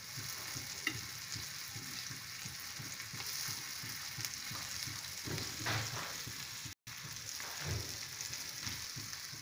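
Rava- and cornflour-coated mandeli (golden anchovy) pieces shallow-frying in oil on a flat tawa: a steady sizzle with small crackles, cut off for a moment about two-thirds through.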